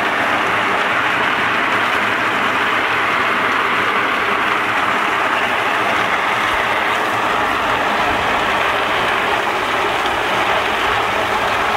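Meltem C-120 walnut peeling machine running with a drum load of green walnuts, the nuts churning against the grated steel drum under a water spray as their green hulls are stripped off. It makes a steady, dense, unbroken noise.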